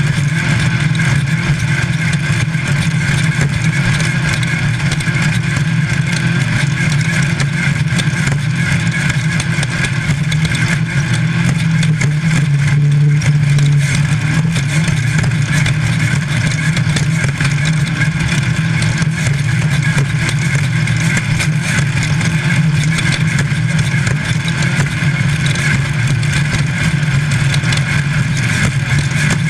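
Air-cooled VW engine of a Class 5 Baja Bug race car running hard and steady, heard from inside the car. It is loud and continuous, rising briefly in pitch and level about halfway through, over a constant wash of road and wind noise.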